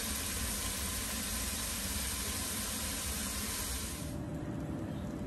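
Peppers, onions and broccoli sizzling as they sauté in oil in a pan, a steady hiss that drops away about four seconds in.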